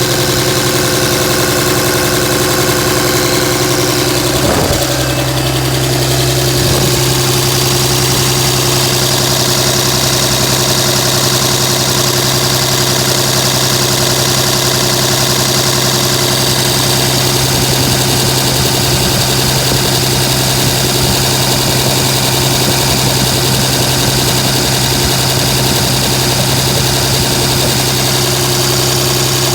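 2007 Dodge Ram's 5.9 Cummins turbo-diesel inline-six idling steadily, with diesel clatter. This is the rough idle the owner is asking about, which he fears comes with too much blow-by.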